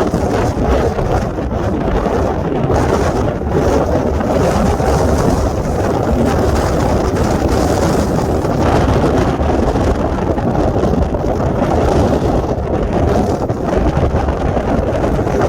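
Strong, gusty storm wind buffeting the microphone: a loud, uneven rushing noise that rises and falls in gusts.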